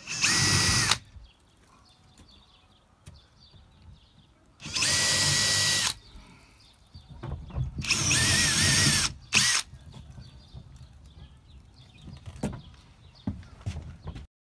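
Cordless drill running in three bursts of about a second each, with a short blip after the third; its motor whine holds steady in the first two and wavers in the third. It is driving the fixings for the timber framing of an overhead shelf.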